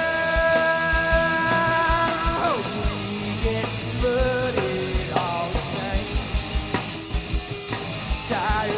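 Live band playing an instrumental stretch of a song, electric guitars over a steady kick-drum beat. A long held note opens the stretch and slides down after about two and a half seconds, followed by shorter bent phrases.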